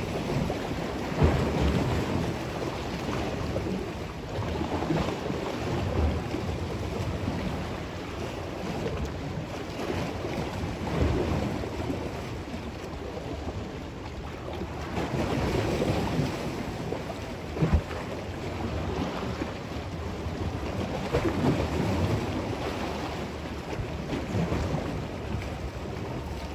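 Wind buffeting the microphone over the rush and slosh of choppy lake waves. The noise swells and eases in gusts every few seconds, with one sharp knock about two-thirds of the way in.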